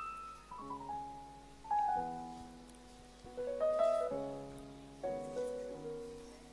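Keyboard playing soft chords, each held and fading, with a new chord about every second or two.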